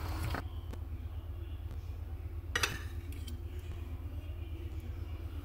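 Metal fork and spoon scraping and clinking against a ceramic dinner plate while eating, with one sharp clink about two and a half seconds in, over a steady low hum.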